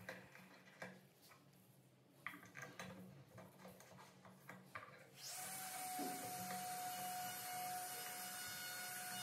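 Small clicks and light knocks of metal door hardware being handled and fitted with a hex key. About five seconds in, a steady machine-like hum with a hiss and a thin whine starts abruptly and becomes the loudest sound.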